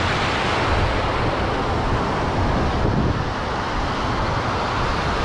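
Sea surf breaking and washing over the sand at the water's edge, with wind rumbling on the microphone.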